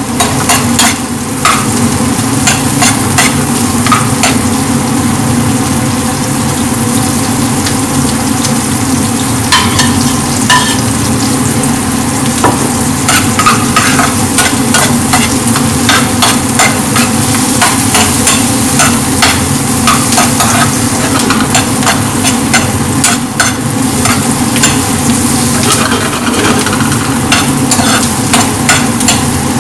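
Chopped onion and garlic sizzling as they fry in a large aluminium pan, stirred with a metal ladle that scrapes and clicks against the pan again and again.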